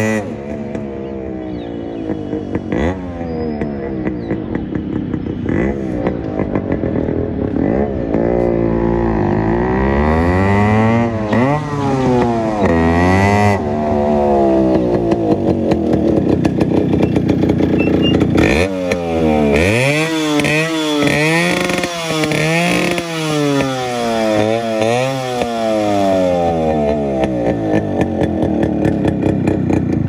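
Yamaha RX135's two-stroke single-cylinder engine, fitted with two silencers and run without mufflers, very loud as the motorcycle is ridden; its pitch climbs and drops over and over as it accelerates and slows.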